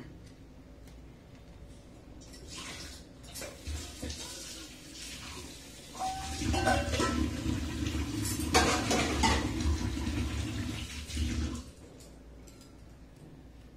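Water running, growing louder about halfway through and stopping suddenly near the end.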